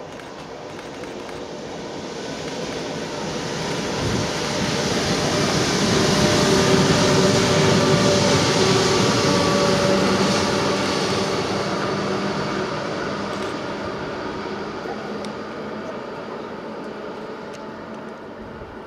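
Class 86 AC electric locomotive running light (no train behind it) as it passes: a steady rumble of wheels on rails with a steady electric hum. It builds to its loudest about halfway through as the locomotive goes by, then fades as it draws away.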